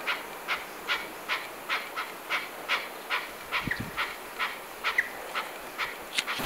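Chukar partridge calling a steady series of short 'chuck' notes, about two to three a second.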